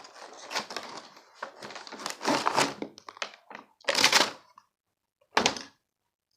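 Slime kit contents being handled and unpacked: plastic packaging rustling and crinkling, with knocks as items are moved and set down. The loudest clatter comes about four seconds in, then a single knock about a second later.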